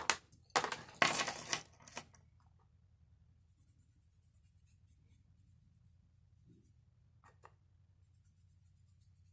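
Scratchy scraping of a key on a stick of colored chalk, a short stroke and then a longer run over the first two seconds. After that only a faint hum, with two small clicks near the end.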